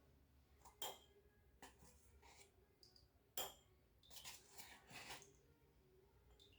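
Faint, brief scrapes and light taps of kitchen utensils, a handful spread over a few seconds, as flour is measured out for cake batter.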